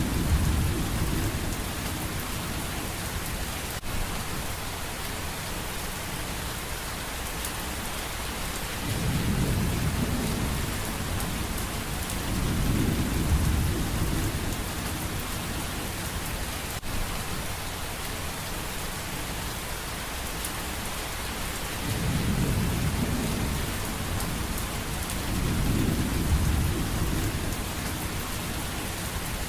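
Steady heavy rain hissing, with low rolls of distant thunder that swell and fade about five times.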